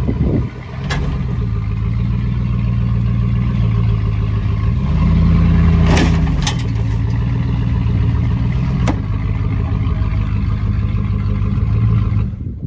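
Vehicle engine running, revving up about five seconds in and settling back to a steady note, with a few sharp knocks along the way. The sound stops abruptly near the end.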